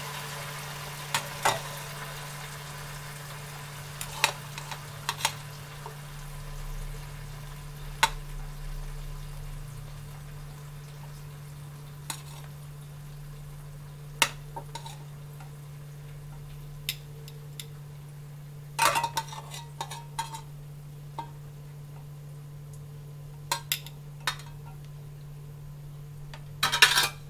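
Kitchen tongs clicking and tapping against a stainless steel bowl and a ceramic-looking plate as vegetable sticks are picked up and laid down, in scattered light clicks, with a short rattle about two-thirds of the way in and the loudest one near the end. A steady low hum runs underneath.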